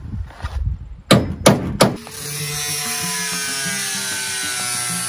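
Three sharp knocks on the sheet-metal body of a military truck's van box, then a corded power tool starts and runs steadily with a high whine that sags slightly in pitch, working on the box's metal skin as it is stripped off.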